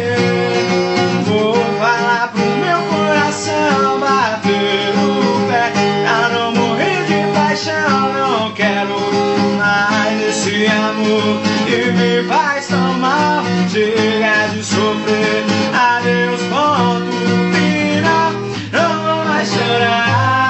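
Music: an instrumental passage with acoustic guitar strumming and a melody line that bends up and down over it.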